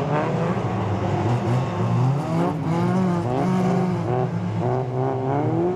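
Several racing cars' engines revving hard on a dirt track, their pitch rising and falling again and again as the drivers accelerate and lift through the corners.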